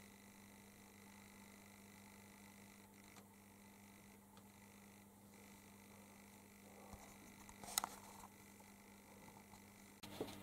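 Near silence: room tone with a faint steady mains hum, and one faint click about three quarters of the way through.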